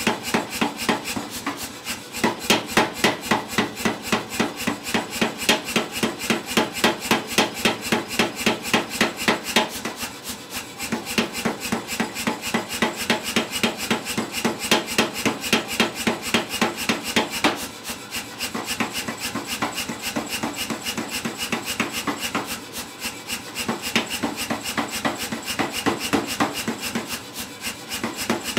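Say-Mak power hammer pounding a hot steel bar between its flat dies, a fast steady train of heavy blows at about three or four a second, easing to lighter blows for a moment a few times as the bar is drawn out.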